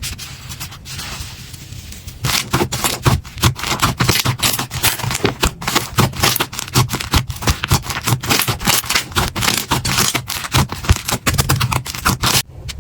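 Slime being squeezed and pressed by hand, giving dense, rapid crackling clicks and pops after a softer scraping first couple of seconds.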